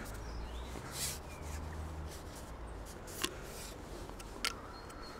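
A few short sharp clicks and knocks of fishing tackle being handled while a fish is played and netted, over a low rumble during the first two seconds.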